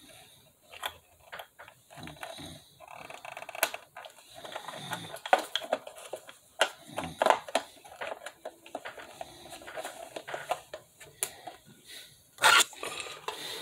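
Hands handling a plastic toy RC bus while its battery is pushed into the battery compartment: irregular small plastic clicks, taps and rubbing, with a louder brush or knock near the end.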